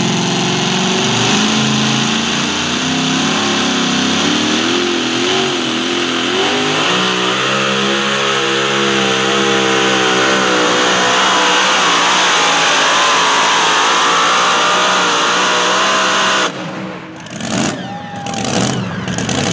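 Supercharged engine of a super modified two-wheel-drive pulling truck at full throttle, dragging the pulling sled, its pitch wavering and climbing as the rear tyres spin in the dirt. About sixteen seconds in the engine cuts off abruptly, leaving quieter, uneven sounds.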